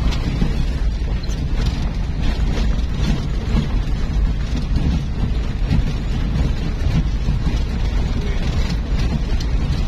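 Vehicle engine and tyres giving a steady low rumble inside the cab while driving over a stony riverbed, with wind buffeting the microphone.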